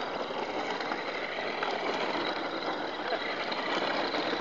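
Brushed electric motor and drivetrain of an HSP Brontosaurus RC car running: a steady whir with a faint high whine.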